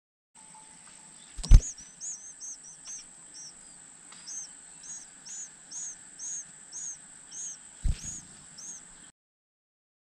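American robin nestlings giving thin, high begging peeps, about two a second, as the adult feeds them at the nest. Two sharp thumps, about a second and a half in and near the end, are the loudest sounds.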